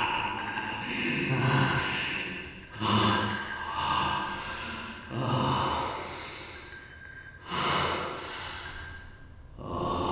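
A man's heavy, gasping breaths, one every second or two, each starting sharply and trailing off in a long echo.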